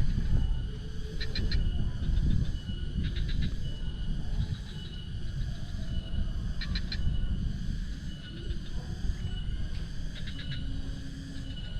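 Outdoor nature ambience: small animals, insects or birds, calling, with a steady high tone and short rapid trills that recur every second or two. Under them runs a louder low rumble.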